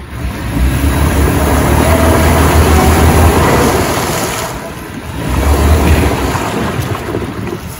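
Ford Territory SUV's engine revving hard in two surges, a long one and then a shorter one, while its front wheel spins in deep mud and throws it out. The vehicle is bogged and the tyre is not getting grip.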